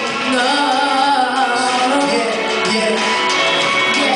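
A man and a woman singing a pop duet into microphones over backing music.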